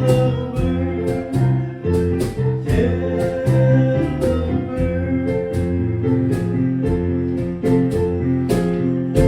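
Instrumental music: guitar chords with regular sharp strummed or struck accents, with no singing.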